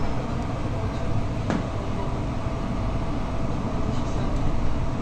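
Inside a new articulated city bus under way in slow traffic: steady low engine and road rumble with a faint steady whine, and a single click about a second and a half in.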